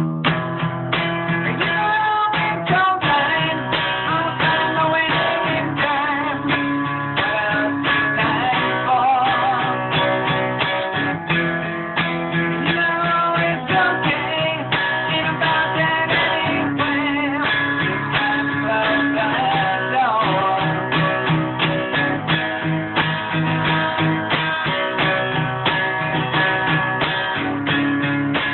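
Guitar being strummed and picked through a song's chord changes, in a steady rhythm. The player says the guitar is probably slightly out of tune.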